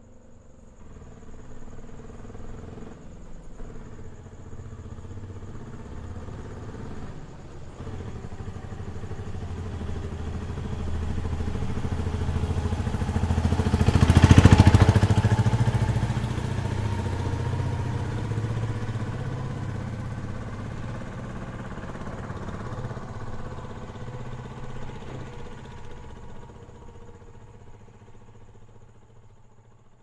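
Auto rickshaw driving past: its small engine grows from faint to loudest about halfway through, then fades away.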